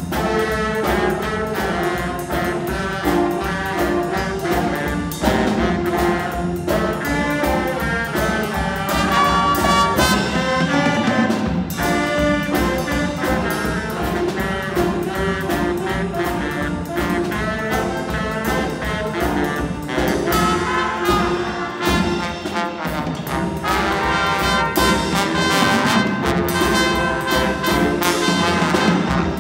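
A school jazz band playing live: saxophones, trumpets and trombone carry the tune over electric guitar, bass guitar and a drum kit striking a steady beat.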